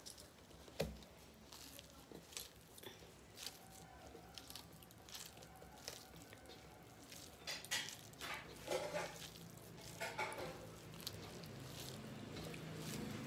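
Faint clicks and scrapes of fingers mixing rice on metal plates, with soft eating sounds. There is a sharper knock about a second in, and a busier stretch past the middle.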